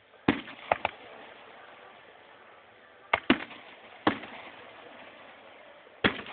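Fireworks going off: about seven sharp bangs at irregular intervals, three in quick succession in the first second, two close together around three seconds in, one a second later and one near the end.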